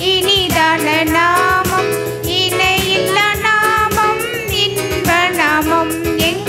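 A woman and a girl singing a Christian worship song together into microphones, over instrumental backing with a steady beat.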